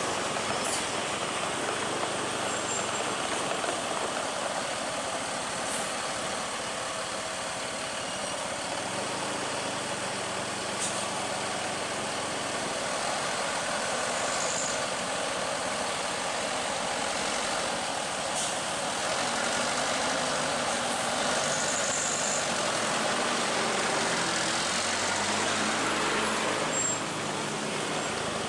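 Heavy diesel vehicles, a bus or truck, running steadily on a road over a constant rushing noise, with a few brief high hisses.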